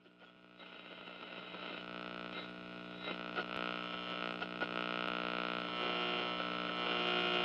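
Electrical mains hum fading in and growing steadily louder, with scattered crackles and clicks over it, like the hum and static of an old radio broadcast recording.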